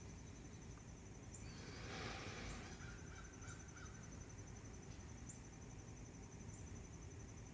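Faint outdoor ambience: insects trilling steadily at a high pitch, with a few short faint bird chirps about three seconds in and a brief swell of low hiss about two seconds in.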